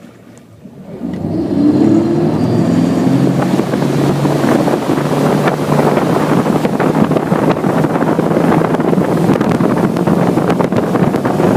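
Motorboat engine speeding up about a second in, then running steadily at speed, with wind noise on the microphone.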